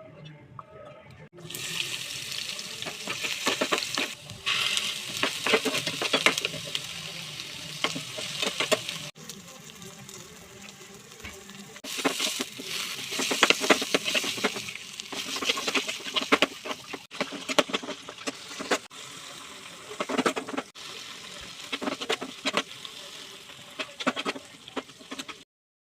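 Kitchen cooking sounds: a steady hiss with many sharp clicks and clatters, in several clips cut together with abrupt breaks.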